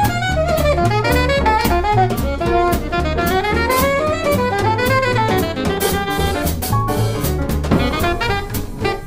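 Jazz quartet playing swing: an alto saxophone solos in quick runs of eighth notes that climb and fall, over plucked double bass, piano and drums with steady cymbal strokes.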